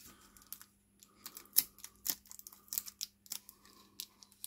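Adhesive tape and plastic model-kit parts being handled to tape down cracked pieces on a sprue: a run of irregular sharp clicks and crackles, the loudest about a second and a half in.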